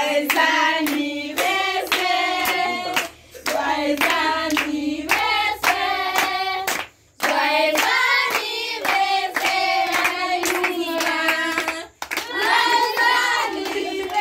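A group of children and adults singing a song together while clapping their hands in time, about two claps a second, with a few very brief breaks.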